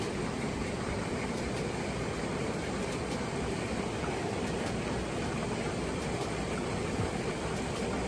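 Mountain stream water rushing steadily, an even unbroken rush.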